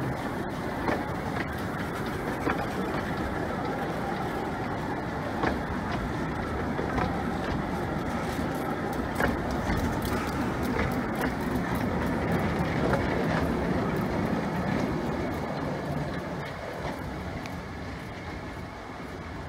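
Narrow-gauge railway carriages rolling past close by: a steady rumble of wheels on rail with scattered clicks from the rail joints. The sound fades over the last few seconds as the train draws away.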